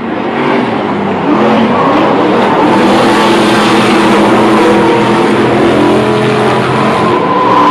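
Several Stadium Super Trucks racing past, their engines running hard, with pitches rising and falling as the trucks accelerate and go by.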